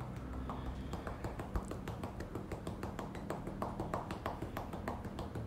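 Cupped hands patting rhythmically on a person's back and ribs, chest percussion meant to loosen stuck phlegm. Quick, uneven taps, several a second.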